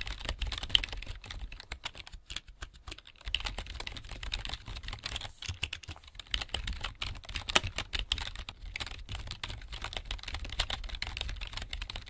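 Rapid typing on a computer keyboard: a dense, uneven run of key clicks over a low hum, with a short pause about two seconds in.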